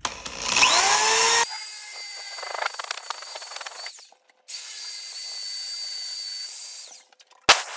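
Cordless DeWalt drill with a quarter-inch Rubi dry diamond bit spinning up with a rising whine, then grinding into the shower curb without water. It runs twice with a short break about four seconds in, stops near the end, and a sharp click follows.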